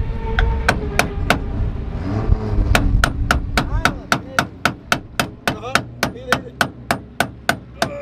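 Hammer blows on metal, a few strikes and then a steady run of about three or four a second, each ringing briefly. The blows come while a BMW E30's right drive half-shaft, whose inner CV joint has a lot of play, is being worked loose.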